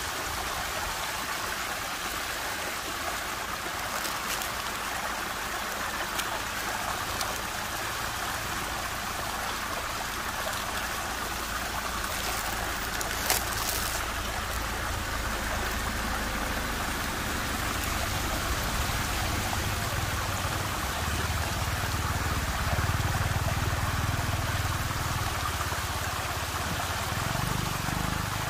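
Whirlpool water rushing steadily, with a single sharp click about halfway and a low rumble swelling in the last third.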